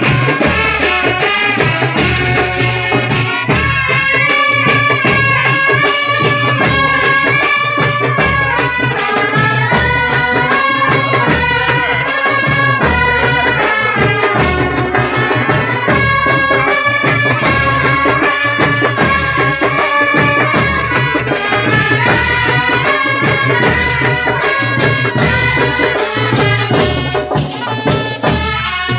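Loud procession music, a melody stepping in pitch over a steady drum rhythm, playing without a break.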